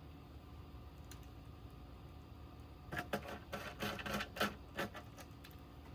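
A quick run of short clicks and rattles from small parts and screws being handled while the oscilloscope is reassembled, bunched between about three and five seconds in, over a faint steady hum.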